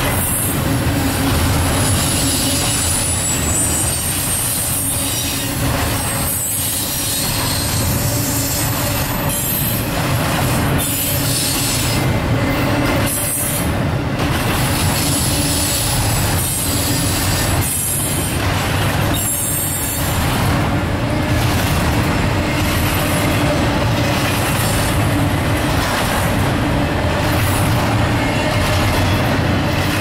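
Double-stack intermodal freight train, container-laden well cars rolling past at speed: a loud, steady rumble and clatter of steel wheels on rail. A thin high squeal from the wheels rides over it during the first several seconds, and the sound dips briefly every few seconds.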